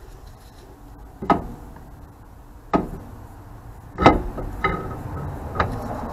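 Sharp metal clunks, five in all and irregularly spaced, as an axle shaft is pushed and turned into a Chrysler 8 3/4 rear axle housing. The axle is not going fully home.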